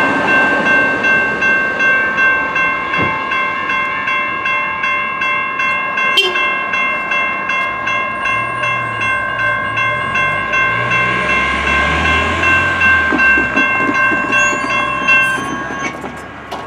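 Electronic railroad crossing bells ringing steadily, dinging about twice a second, then cutting off about fifteen seconds in. These bells ring through the whole activation, so their stopping marks the crossing signal shutting off as the gates finish rising. A low rumble swells underneath in the middle.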